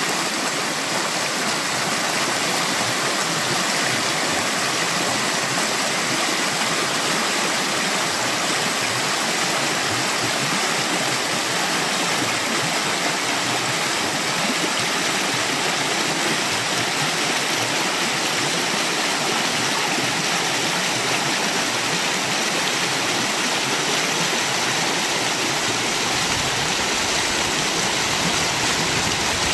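Creek water rushing and splashing over rocks in a steady, even rush. A deeper rumble joins near the end.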